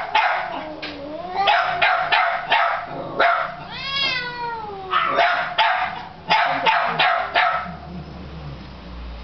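A dog barking in short repeated barks, with a long rising-and-falling meow about four seconds in.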